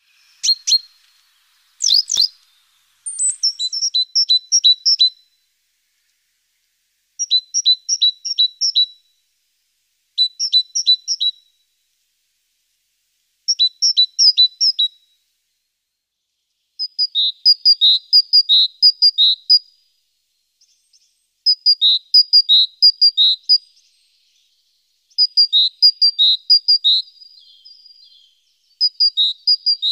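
A songbird singing short phrases of quick, evenly repeated high notes alternating between two pitches, each phrase one to two seconds long and repeated every few seconds. Two sharp clicks sound near the start.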